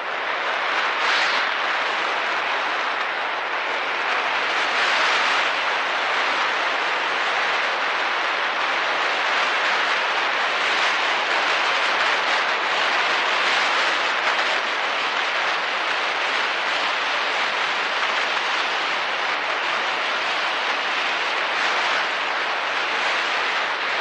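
Steady rush of wind and road noise while riding a Yamaha Mio Soul i 125 scooter at speed, with wind buffeting the camera microphone and no clear engine note standing out.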